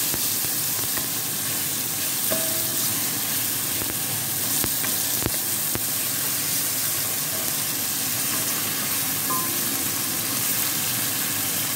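Freshly added chicken breast pieces sizzling in hot oil with onion, garlic and tomato in a stainless steel pot, stirred with a wooden spatula that clicks and scrapes against the pot now and then.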